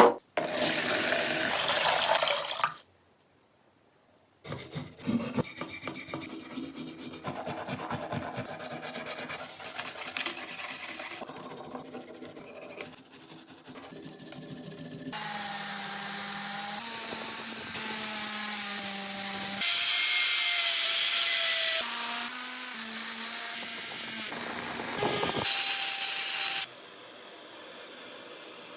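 A run of short cut-together workshop sounds on rusty metal parts: rapid scraping and rubbing strokes, then an electric tool running with a steady whine whose pitch changes from clip to clip.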